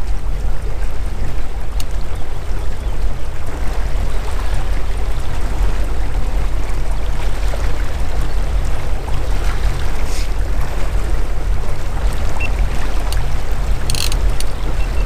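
Motorboat engine running steadily at slow trolling speed: a deep, even rumble with water rushing along the hull. A few short clicks sound near the end.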